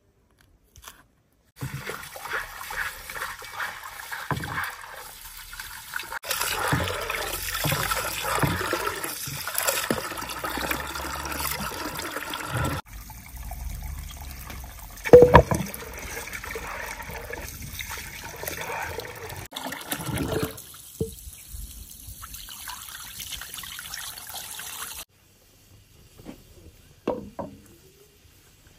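Water running and splashing into a stone basin as a black kettle is filled, with a single loud knock about halfway through.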